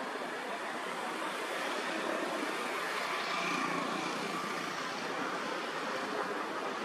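Steady rushing outdoor background noise, with a few faint high tones about halfway through.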